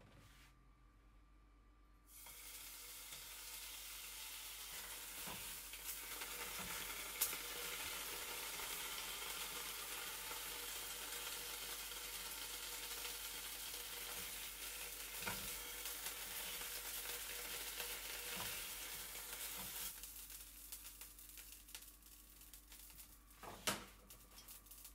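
Slices of ham sizzling in a frying pan. The sizzle starts suddenly about two seconds in as the slices go into the hot pan, holds steady, and dies away near the end after they are lifted out. A few sharp clicks come from chopsticks against the pan.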